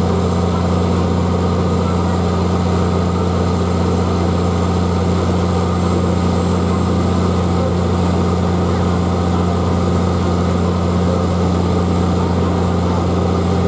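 A fire truck's heavy diesel engine runs steadily at a constant speed, with a strong low hum that does not change.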